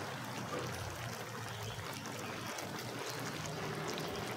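Coconut-milk sauce with crab and vegetables simmering in a metal pan, a steady soft hiss.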